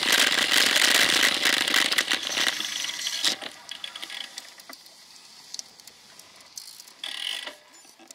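Road bicycle rattling and ticking, picked up through a rear camera clamped to the bike. It is loud for the first two to three seconds, then dies away to faint scattered clicks as the bike slows to a stop. A short burst of noise comes near the end.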